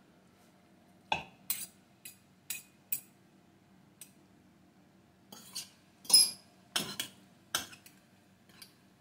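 A metal serving utensil clinking against a stainless steel pot and a ceramic plate as linguine is lifted out and served. About a dozen sharp, separate clinks, the loudest a quick cluster about six seconds in.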